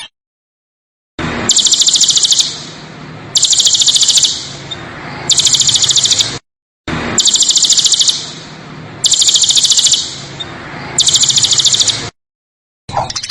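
A songbird giving rapid, rough, rattling trills: three high bursts of about a second each with short pauses between them. The same three-burst sequence plays twice with a brief silent gap between, which marks it as a looped recording.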